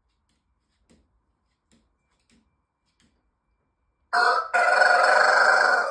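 Rooster crowing loudly, starting about four seconds in: a short first note, a brief break, then a long held call. A few faint ticks come before it.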